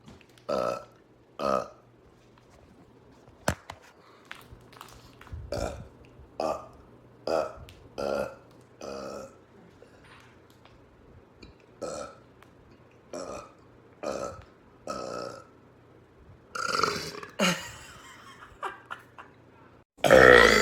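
A man burping over and over: a string of short burps about one a second, a pause partway through, then a longer, louder burp near the end.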